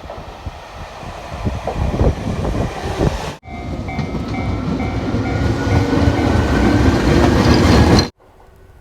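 Train running past with a heavy rumble and scattered clattering knocks. After an abrupt cut about three seconds in, a louder passage carries a slowly rising whine and a repeating beeping tone, then cuts off sharply near the end.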